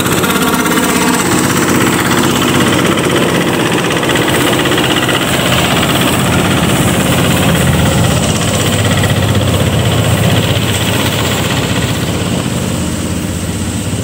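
Engine-driven power rice thresher running loudly and steadily under load as bundles of rice stalks are fed into its threshing drum.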